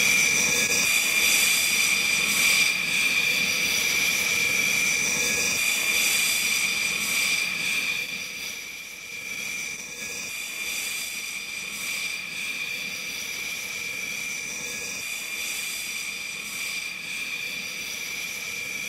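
Dassault Rafale fighter jet's twin Snecma M88 turbofan engines running on the ground, a steady high-pitched whine over a rushing noise. It is loudest for the first several seconds, then drops a little and holds steady.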